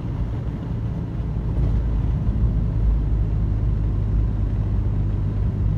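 A 1955 Morris Minor's four-cylinder engine and road noise, heard from inside the cabin while cruising at road speed. A steady low drone that gets a little louder about two seconds in.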